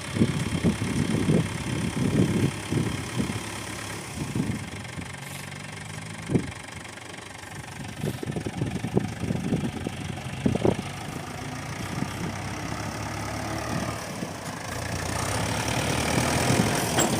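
Heavy diesel engine of earth-moving machinery running at low speed, with irregular low knocks and clunks through the first half. It grows louder over the last few seconds.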